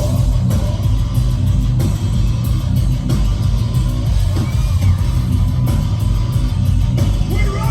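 A heavy metal band playing live with distorted electric guitars and a drum kit, loud and steady, with no singing.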